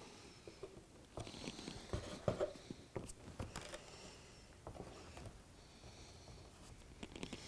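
Quiet handling noise: small clicks, taps and light scrapes as a model railway point is pressed and shifted into place on foam trackbed by hand, busiest in the first half, with a few more clicks near the end.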